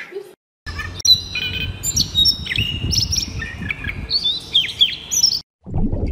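A small songbird singing a quick run of varied high whistles, chirps and short trills, some held and some sliding in pitch, over a low rumble. The song stops abruptly about five seconds in.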